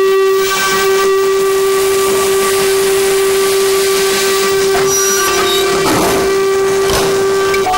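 Train whistle blowing one long, steady note over a hiss, the pitch shifting higher just before the end.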